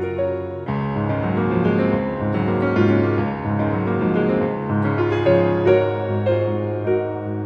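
Instrumental soundtrack music led by piano, a melody of struck notes over a held low bass that fills out about a second in.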